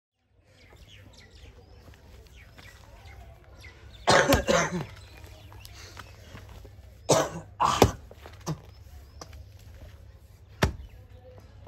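A long-handled digging hoe chopping into loose soil: a few loud strikes, one cluster about four seconds in, two more a few seconds later, and a sharp one near the end.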